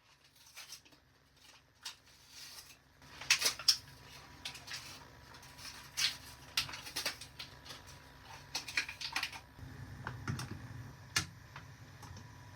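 Irregular clicks, taps and light clatter of objects being handled, with a few louder bunches of clicks, over a steady low hum.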